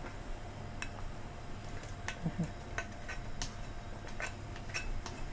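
Light, scattered clinks and taps of a spoon against a ceramic bowl as ingredients are scraped from it into a pot of coconut milk.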